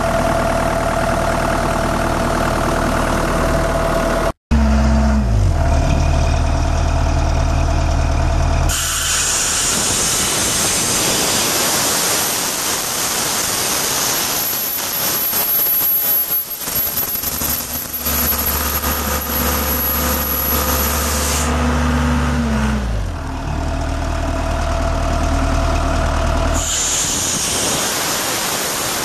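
Sullair 185 air compressor's John Deere four-cylinder diesel running, its engine note dropping in pitch twice as it slows. Two long stretches of loud hissing, typical of compressed air blowing from the discharge, cover the engine, one through the middle and another near the end. There is a brief dropout a few seconds in.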